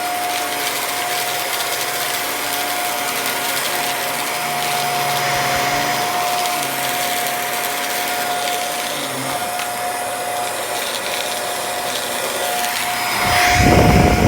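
Hoover WindTunnel3 upright vacuum cleaner running with a steady whine over its motor and airflow noise. A louder low rumble joins about a second before the end.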